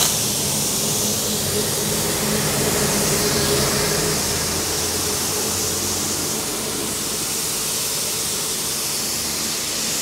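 Pressure washer with a wheeled floor and underbody cleaner attachment spraying water under a motorcycle: a steady hiss of high-pressure spray over a low hum that fades after about six seconds.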